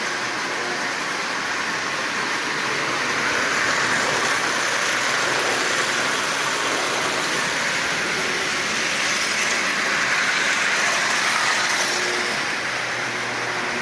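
Marx toy train locomotive with a 999 single-reduction electric motor running around three-rail track at half power: a steady whirring run that grows louder for several seconds in the middle, as if passing close, then eases off again.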